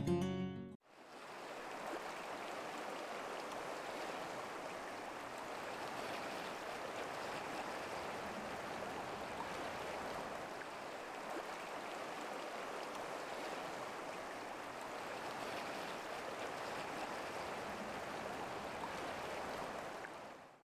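Stream water flowing steadily, a continuous babbling rush that stops abruptly near the end. The last notes of an acoustic guitar fade out in the first second.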